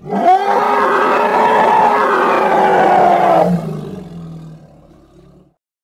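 Hippopotamus roar as a film sound effect: one long, loud roar that starts abruptly, holds for about three and a half seconds, then fades away over the next two.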